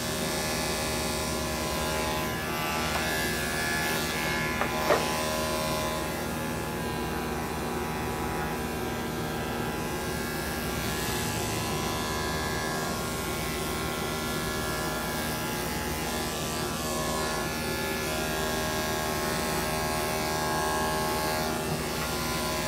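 Corded electric dog-grooming clippers running with a steady buzz as they are worked through a dog's coat, with one brief click about five seconds in.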